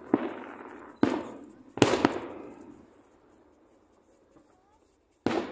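Aerial firework shells bursting: three sharp bangs within the first two seconds, each fading out slowly, then a lull of about two seconds before another bang near the end.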